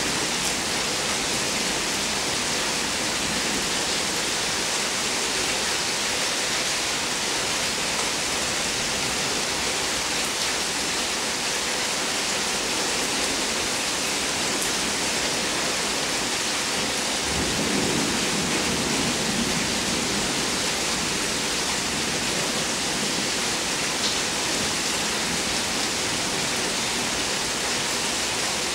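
Steady heavy rain falling during a thunderstorm, with a low rumble of thunder rolling in about two-thirds of the way through and fading over a few seconds.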